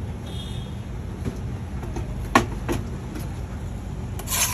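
Steady low background rumble at a street-food griddle, with two sharp clicks a little past halfway and a short hissing burst at the very end.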